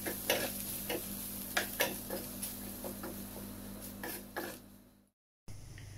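Wooden spatula stirring onions and spice powders in a stainless steel frying pan: irregular clacks and scrapes against the pan over light sizzling, with a steady low hum underneath. The sound fades and cuts out completely for a moment about five seconds in.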